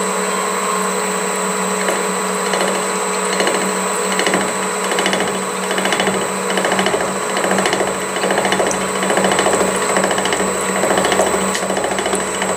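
Milling machine driving a gear hob, cutting the teeth of a small steel gear blank under coolant: a steady machine hum and whine, with a rhythmic pulse that sets in about two seconds in and repeats a little under twice a second.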